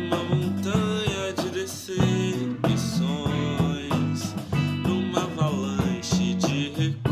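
A small band playing a song: an electric bass line and a drum kit with cymbals, with a voice singing over them.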